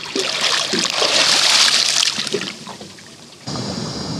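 Water splashing and sloshing as a snorkeler swims at the surface. About three and a half seconds in it cuts abruptly to a steady underwater hiss with a faint high whine.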